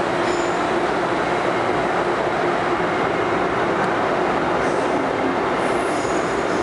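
MTR M-Train electric multiple unit running into an underground station platform: a steady, even rumble of wheels on rail with a steady hum, and faint brief high-pitched squeaks about a third of a second in and near the end.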